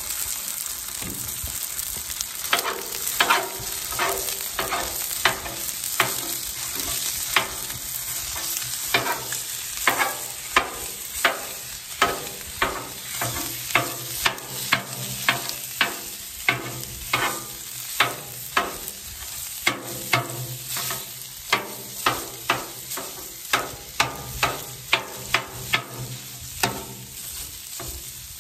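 Ground breakfast sausage sizzling on the oiled steel top of a Blackstone 28-inch griddle while a metal bench scraper chops it. The blade strikes the griddle in sharp clacks, about one to two a second, starting a couple of seconds in.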